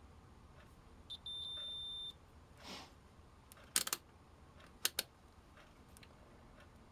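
A digital multimeter gives one steady high beep of just under a second, about a second in. A soft rustle and a few sharp clicks of handling follow, about four and five seconds in.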